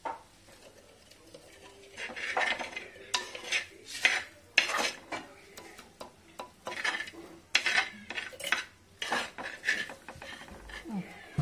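Chilli masala being mixed in an earthenware pot: a run of short, irregular scraping strokes against the clay, roughly two a second, starting about two seconds in.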